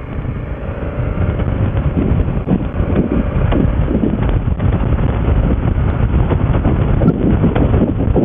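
Wind buffeting a motorcycle rider's helmet microphone, swelling over the first second as the bike speeds up and then staying a steady, fluttering rush. A faint engine note rises underneath early on as the bike accelerates.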